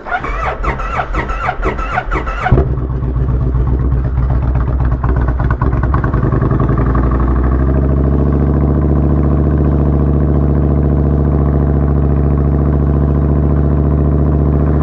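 Kawasaki Vulcan 1500 Nomad's V-twin engine in a true cold start on choke: it cranks on the starter for about two and a half seconds, then catches and runs at a fast choked idle that settles into a steady beat about eight seconds in.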